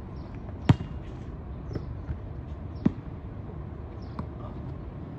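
A basketball striking hard during a pickup game: two sharp knocks, the loudest about a second in and another near three seconds, with a few fainter knocks between and after.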